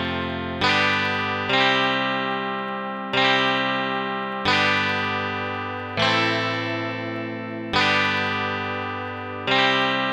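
Plucked-string chords played on the Heavenly Chords phone app, heard straight from the phone's own audio. A new chord is struck about every one and a half seconds, seven in all, and each one rings and fades until the next.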